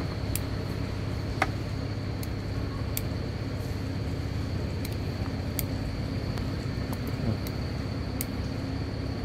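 A steady low background hum with a faint high-pitched whine over it, and scattered light ticks; one sharper tick comes about one and a half seconds in.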